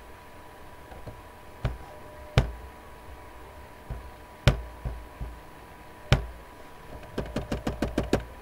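Computer mouse clicking: a few scattered single clicks, then a quick run of about ten clicks near the end.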